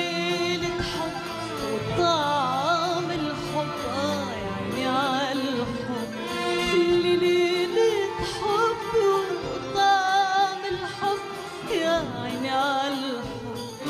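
A woman singing an Egyptian Arabic song with wavering, ornamented runs, accompanied by an orchestra with violins.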